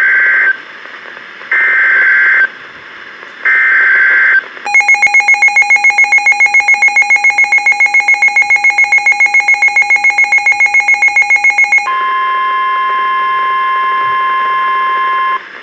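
NOAA Weather Radio tornado warning received on a Midland WR-400 weather radio. Three one-second bursts of SAME digital header data screech, a second apart. The radio's own alert beeps in a rapid pulse of about seven beeps a second for some seven seconds, and then the steady 1050 Hz NWR warning alarm tone sounds for about three and a half seconds.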